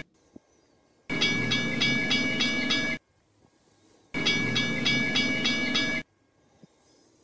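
Phone ringtone ringing: two rings of pulsing electronic tones, each about two seconds long, a second or so apart, after an earlier ring that cuts off right at the start.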